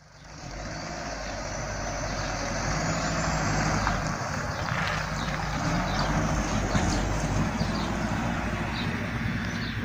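Box delivery truck's engine running steadily as the truck pulls away. The sound fades in over the first second.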